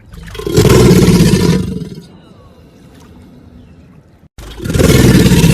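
Two loud, deep crocodilian roars, each lasting about a second and a half, the second starting just after a short break about four seconds in.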